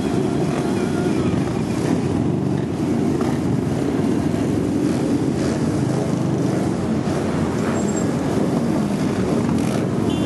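Engines of many motorcycles running together in a moving parade pack: a steady, loud mix of engine noise.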